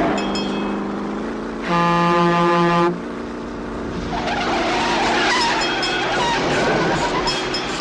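Car and semi-trailer truck running at speed, with engine and tyre noise. A vehicle horn sounds loudly in three quick blasts about two seconds in, and brief high tyre squeals come near the start and again toward the end.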